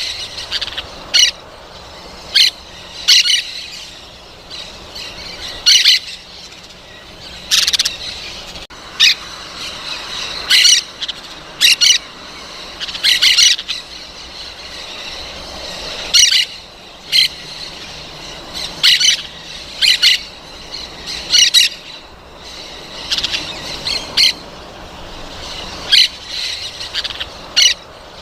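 Parrots giving short, high-pitched calls, one after another about once a second at an uneven pace.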